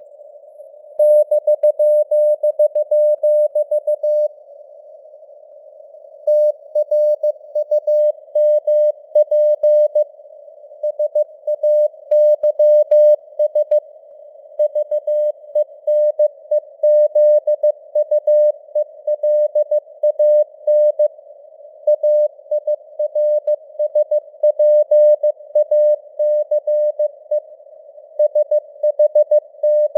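Morse code (CW) at 15 words per minute: a single tone near 600 Hz keyed in dits and dahs, over a band of simulated radio hiss. The keying pauses for about two seconds a few seconds in, then runs on.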